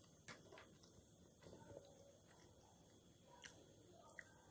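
Near silence: faint chewing of peanuts with a few soft clicks, as in-shell peanuts are handled and a shell is pried open by hand near the end.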